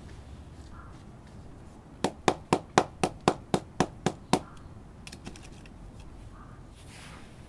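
About ten quick, even knocks, roughly four a second, from a plastic plant pot of gravelly potting mix being tapped to settle the grit around a freshly repotted orchid.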